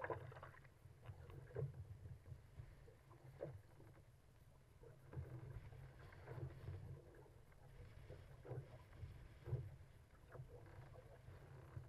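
Faint water splashing and slapping against a surfski's hull as it paddles through wind-driven chop, with irregular splashes over a low steady rumble.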